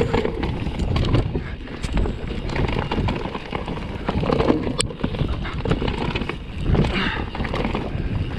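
Vitus Sommet 29 full-suspension mountain bike descending a rough dirt trail: tyres rumbling and the bike rattling and clattering over roots and bumps, with a sharp clack about halfway through. Wind buffets the chest-mounted microphone.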